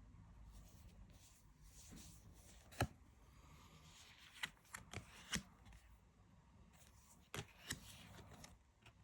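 Tarot cards being handled and laid down one after another: faint sliding and swishing of card stock, with several sharp snaps and taps as cards meet.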